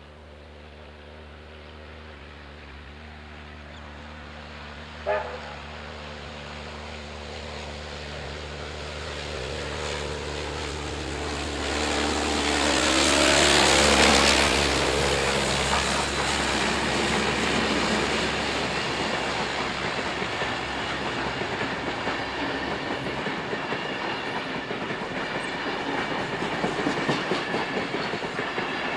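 A train approaching and passing. A short toot from the locomotive comes about five seconds in. The locomotive's noise builds to its loudest about halfway through, then the steady clatter of carriage wheels rolling over the rails takes over.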